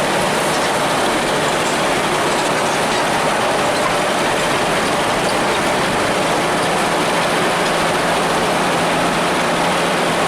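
Hino AK-3 bus's diesel engine running steadily under way, its hum mixed into a constant wash of road and cabin noise.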